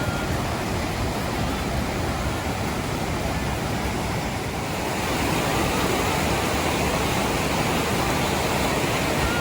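Steady rush of fast-flowing water in a mountain stream, a little louder from about halfway through.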